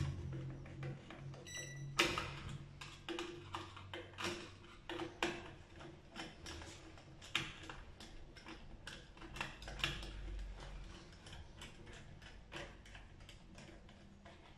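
Irregular clicks and knocks of a mortise smart lock's metal parts being handled and a screwdriver working at its bolt faceplate, with a short electronic beep about one and a half seconds in, just before the loudest click.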